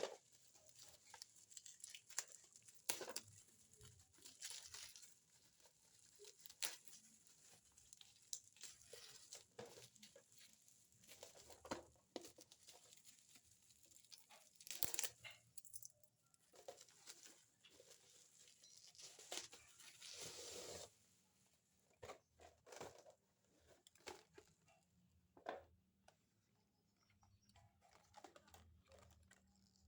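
Faint rustling and crinkling of a cardboard box and its packaging being handled, with scattered light taps and a longer rustle about two-thirds of the way through.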